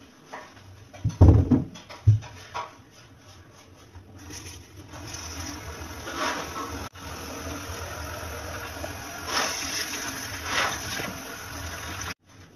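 Tap water running into a stainless steel sink and splashing onto and into a cut-open pumpkin, starting a few seconds in and cutting off suddenly near the end. Before the water starts there are a few heavy thumps.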